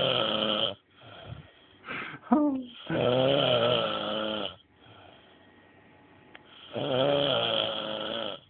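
A drunk man snoring loudly in deep sleep: three long, rumbling, wavering snores about four seconds apart, with quieter breaths between them.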